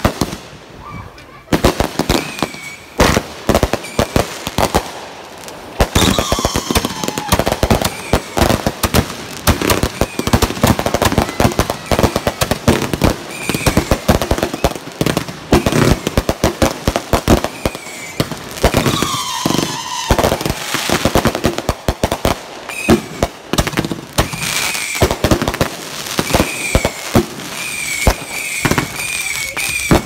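Consumer aerial fireworks in a rapid finale barrage: many loud bangs and crackles of bursting shells in quick succession, nearly without pause. A few falling high-pitched tones sound above the bangs.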